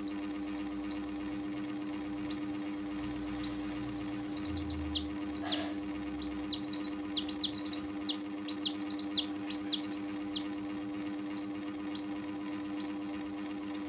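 Baby chicks peeping: a run of short, high chirps, many falling in pitch, coming more often after the first few seconds, over a steady low hum.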